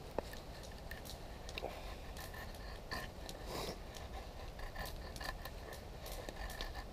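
Convex-ground knife blade shaving feather-stick curls off a dry poplar stick: a series of short, faint scraping strokes of steel slicing through wood, with a small sharp click near the start.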